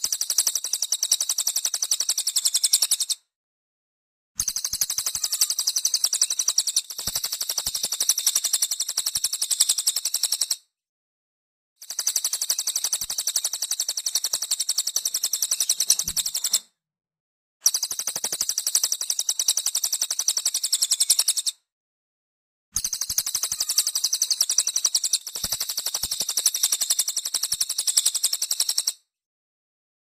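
Cililin songbird singing a rapid, high-pitched chattering trill, in phrases of about four to six seconds that start and stop abruptly, with about a second of silence between them.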